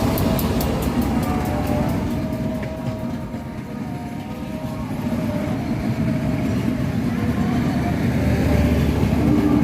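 A train running past on the line, a steady rumble with quick rhythmic clicking of wheels over the rails in the first second or so. The rumble dips about halfway through and grows louder again near the end.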